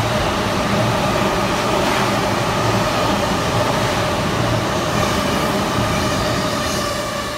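Limited express Azusa, then a Chuo Line rapid train, running through the station at speed: a steady loud rush of wheels on the rails with a steady whine in it, easing off in the last second.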